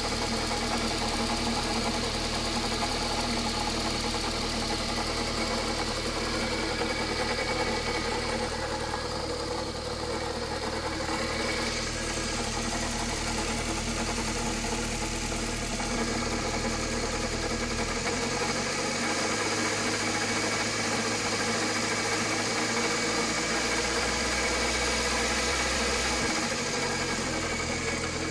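Car engine running with a steady rattle ("karakara") from a failing air-conditioning compressor, which had been wearing out from an oil leak. The low hum shifts about two-thirds of the way through and shifts back near the end.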